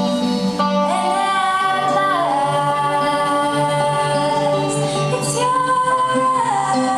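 Live band music: piano and electric guitar accompanying singing, with long held vocal notes that step down in pitch about two seconds in and again near the end.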